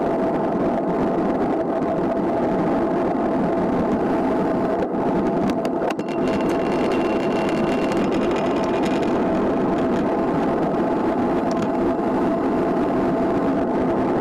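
Steady wind rush and tyre hum from a road bike rolling fast on asphalt, heard through a camera mounted on the bike, with a faint high tone for a few seconds around the middle.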